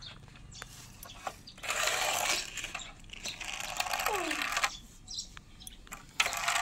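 Plastic toy car rolling along a rough board and concrete, its wheels and toy mechanism giving a rattling, scratchy whirr. It comes in two stretches, one from about a second and a half in to nearly five seconds, and another starting near the end.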